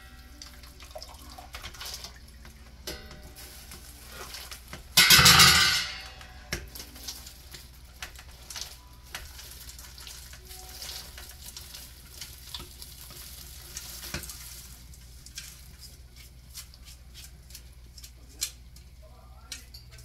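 Wet sorrel being shaken and pushed out of a stainless steel colander into a large stainless steel pot: rustling, soft wet patter and light metal taps and scrapes, with one loud rush about five seconds in as a big clump drops into the pot.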